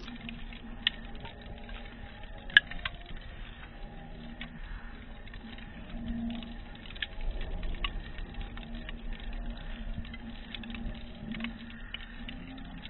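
Wood fire crackling in a barbecue pit, with irregular sharp pops and one louder pop about two and a half seconds in.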